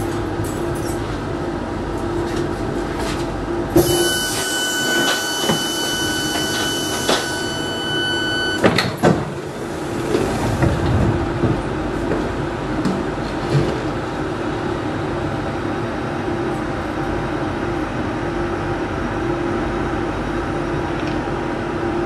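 Train interior running noise, a steady hum. From about four seconds in, a high steady tone sounds for roughly five seconds and stops with a knock near the nine-second mark.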